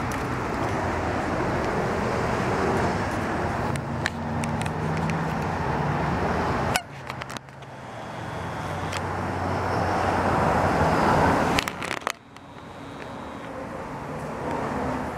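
Road traffic: car engine hum and tyre noise swelling as vehicles go by, breaking off suddenly about seven seconds in and again about twelve seconds in.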